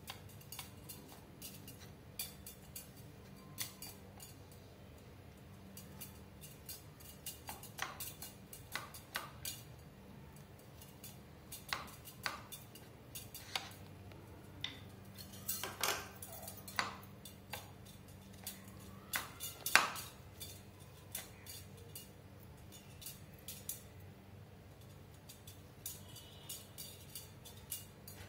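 Hand potato masher knocking and scraping against a bowl as boiled potatoes are mashed: irregular clacks and taps, with one loud knock about two-thirds of the way through.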